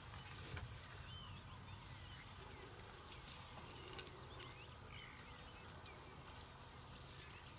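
Quiet bush ambience with faint, scattered bird chirps.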